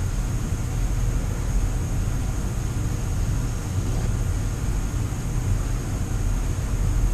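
Steady low machine hum with a thin, constant high whine and a hiss over it.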